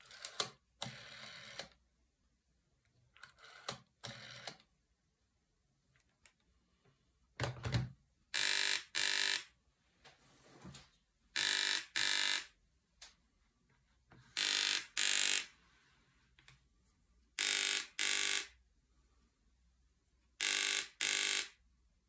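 Siemens Rialto telephone: its rotary dial is wound and runs back twice in the first few seconds, then a knock. From about eight seconds in, the phone's built-in buzzer sounds for an incoming call in a double-ring cadence: pairs of short buzzes repeating about every three seconds.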